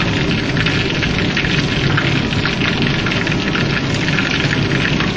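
Pot of instant noodle soup boiling steadily on the stove: a dense, even crackle of bubbles.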